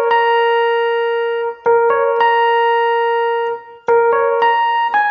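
Electronic keyboard in a piano voice playing a sebene lead line, one note at a time: a short pickup of quick notes landing on a long held B flat, played three times, then a quick descending run of notes begins near the end.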